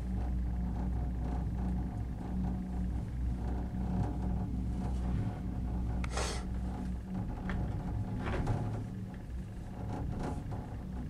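Steady low rumble and hum of a ski-resort gondola cabin riding along its cable, with a few brief rustles about six and eight seconds in.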